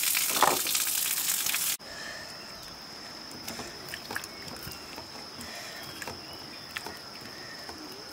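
Muddy water sloshing and splashing as hands scrub potatoes in a metal basin: loud and hissing at first, then after an abrupt cut about two seconds in, soft scattered splashes and clicks under a steady high-pitched tone.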